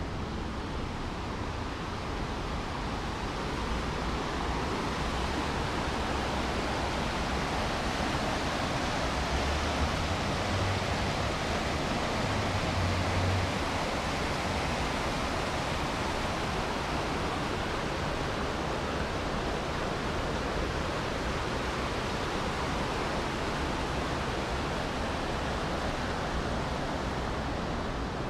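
Steady rushing wind noise on the microphone of a moving bicycle-mounted camera, with a low rumble that swells for a few seconds near the middle.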